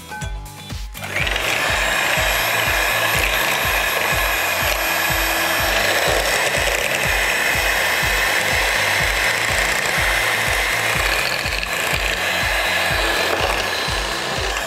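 Electric hand mixer switched on about a second in, then running steadily as its beaters whip cream and sugar in a glass bowl.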